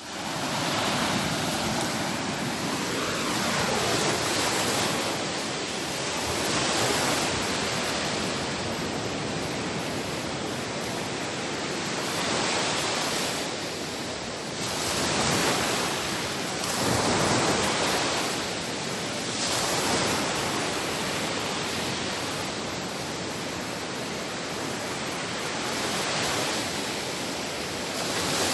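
Sea waves breaking and washing on a shore: a continuous rushing hiss that swells and eases every few seconds.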